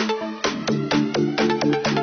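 Electronic background music: a quick beat of sharp percussive hits, about four or five a second, over held synth chords.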